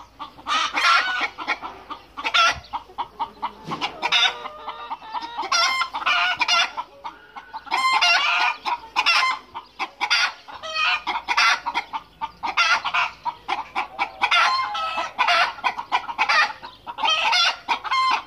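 A flock of hens clucking and squawking in a steady run of short calls. They are stirred up by a new rooster just added to the flock.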